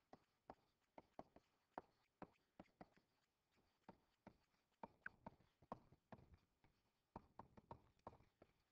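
Faint, irregular clicks and short scratches of a stylus tip tapping and stroking on a tablet screen during handwriting, a few strokes a second.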